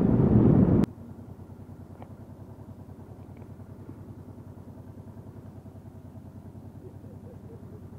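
Wind and road rush while riding for about the first second, then a cut to the Honda NT700V's V-twin engine idling steadily at a stop, with a quick, even pulsing beat.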